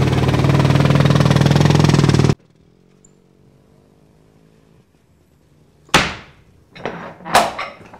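A motor engine runs steadily and cuts off abruptly a little over two seconds in. After a few seconds of quiet, a heavy riveted iron door bangs with a ringing clang about six seconds in, followed by several sharper metallic clanks and knocks.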